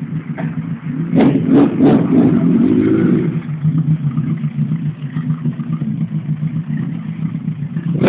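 Kawasaki Zephyr 1100RS air-cooled inline-four idling, given a few quick throttle blips about a second in, then settling back to a steady idle.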